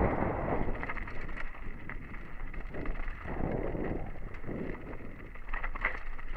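Mountain bike descending fast on dirt and loose stone singletrack: wind rushing over the helmet camera's microphone in gusts, with tyres rolling over the trail and short clicks and rattles from the bike over the bumps.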